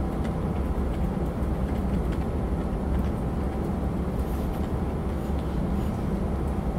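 Steady low rumble and hiss of room noise, with a faint hum and no clear speech.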